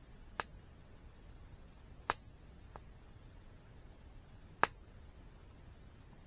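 Wood fire crackling: a few sharp, separate pops, the loudest near the end, over a faint steady high-pitched tone.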